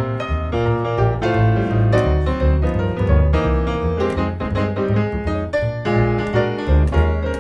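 Jazz duo of grand piano and double bass playing live. The piano plays a busy run of notes over a bass line that moves under it at a steady pace.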